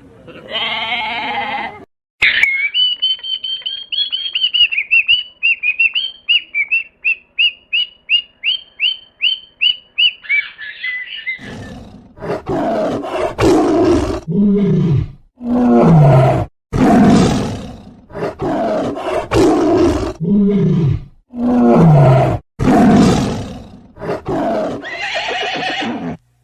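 Animal calls: a short call, then a run of high chirps that come faster and faster, then a string of loud calls about a second long, several falling in pitch.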